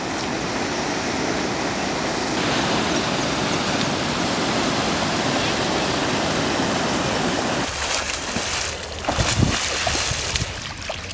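River water rushing steadily over shallow rapids. Near eight seconds this gives way to irregular splashing from a swimmer's arm strokes.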